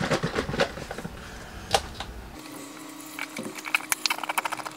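Chicken broth poured from a carton into an Instant Pot's steel inner pot, coming out in a quick, irregular run of gurgles and spatters near the end. There is a single sharp click before the pour.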